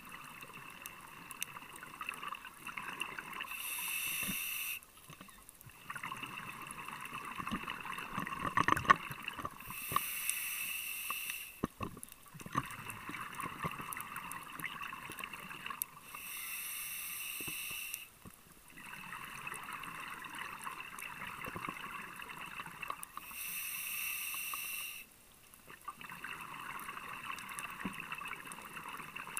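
Scuba diver breathing through a regulator underwater. Four times, a short steady hiss of inhalation is followed by several seconds of bubbling, crackling exhaled air, one breath roughly every six to seven seconds.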